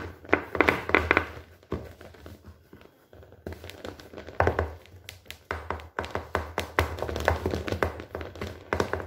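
Hands pressing and stretching soft bread dough out flat in a metal baking pan: irregular taps and light knocks of fingers on the dough and pan, in quick runs with a lull about two seconds in.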